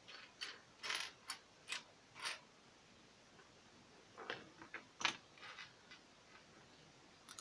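Loose plastic LEGO bricks clicking and clattering as a hand rummages through a pile of pieces. There is a run of light clicks in the first two seconds and another cluster about four to six seconds in.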